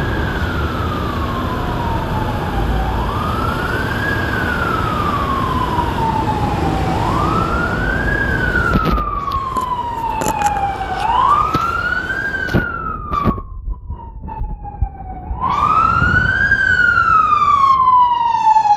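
Emergency vehicle siren wailing, each cycle rising quickly and falling slowly, about once every four seconds, over a low traffic rumble.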